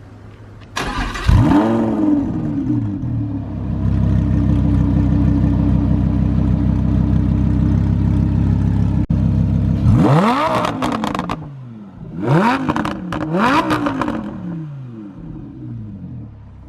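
Lamborghini Huracán's V10 with a loud aftermarket exhaust revving: one rev about a second in, then a steady high drone for several seconds, then three sharp throttle blips that each fall away, the first about ten seconds in.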